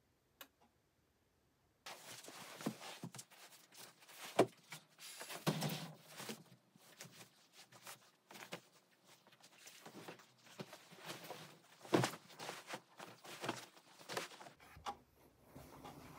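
Bedding being arranged on a child's bed: rustling and shuffling of fabric and cushions, with scattered soft thumps and knocks. It starts about two seconds in.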